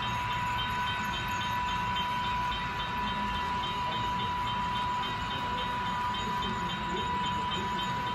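Model freight train of hopper cars rolling along the layout track, a steady low running rumble with a steady high-pitched tone over it.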